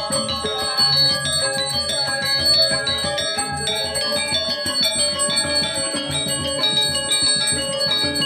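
Balinese gamelan playing: metal mallet instruments striking a quick run of bright notes, with a bell ringing steadily through it.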